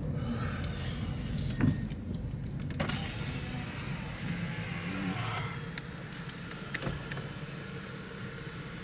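Car cabin noise: a steady low engine and road rumble while the car moves slowly, with a few short clicks and knocks.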